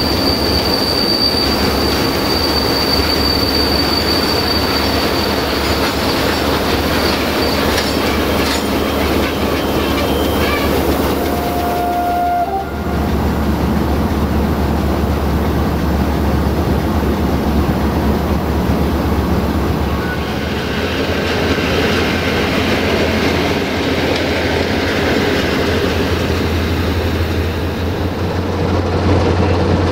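Passenger train coaches rolling slowly past with a clickety-clack over the rail joints and a high wheel squeal over the first few seconds, over the steady low hum of a diesel locomotive standing close by. In the second half a Desiro diesel multiple unit passes, with a fuller rumble.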